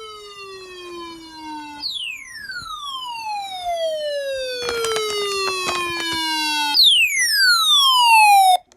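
A siren-like wailing tone sliding down in pitch, starting over high twice. A burst of crackling clicks comes in the middle, and the tone cuts off suddenly near the end, at its loudest.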